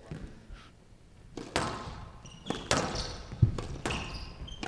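Squash rally: the ball cracking off rackets and the court walls in a series of sharp hits, starting about a second and a half in, with short high squeaks between them.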